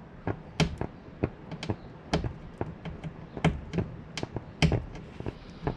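Fingernail clicking and picking against car window glass, working at the edge of old tint film to lift a corner: irregular sharp clicks, about two to three a second.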